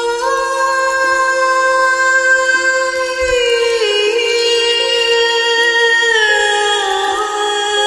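Music: a wordless voice holding long notes that slide down step by step, over a steady lower drone note.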